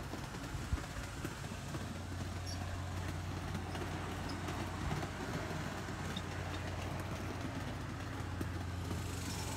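Large-scale garden-railway model of a BNSF diesel locomotive running along its track: a steady low hum from its motor with wheel and rail noise and a few faint clicks.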